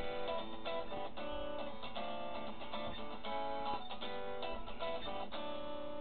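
Guitar-style ringtone melody of plucked and strummed chords, playing from a Samsung Galaxy Core Prime's speaker.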